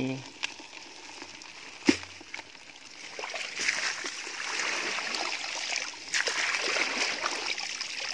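Rustling and wet splashing as someone moves through soggy grass and mud at a pond's edge, irregular and growing denser after about three seconds. A single sharp click comes just before two seconds in.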